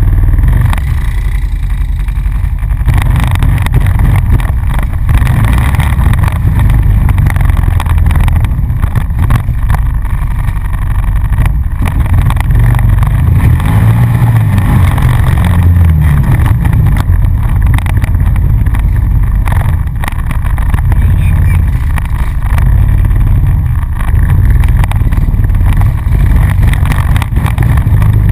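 ATV engine running loud while riding a muddy trail, its pitch rising and falling with the throttle, with jolts and knocks from the rough ground.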